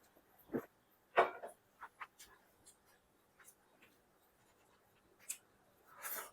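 Close-up eating sounds of chicken biryani: scattered soft clicks and smacks from chewing and handling the food, the loudest about a second in, with a short hissing rustle just before the end.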